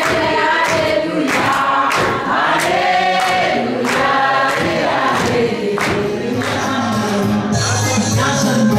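Several voices singing together over a regular beat of sharp strokes about once a second; a steady bass line comes in near the end.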